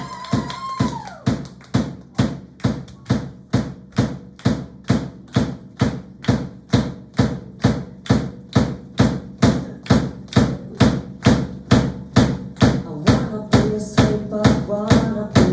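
Pop music with a steady kick-drum beat of about two hits a second over a sustained bass line. A gliding vocal line fades out about a second in, and held melodic notes come in near the end.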